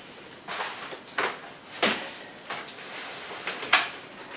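Cybex Mios compact stroller being unfolded: its folding frame and handlebar mechanism clack and click as the chassis opens, about five sharp knocks spread over four seconds with handling rustle in between.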